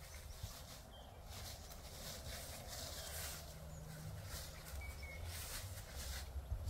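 Outdoor paddock ambience: a low wind rumble on the microphone with intermittent rustling, and two faint short bird chirps, about a second in and about five seconds in.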